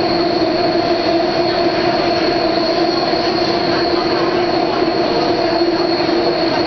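Daejeon subway train running at a steady speed, heard from inside the car: a steady rumble with a high whine and lower hums that hold one pitch throughout.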